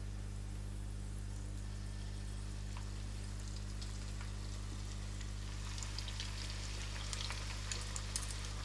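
Potato cylinders deep-frying in hot olive oil, a crackling sizzle that starts faint about halfway and grows busier toward the end as the potatoes go into the oil. A steady low electrical hum runs underneath.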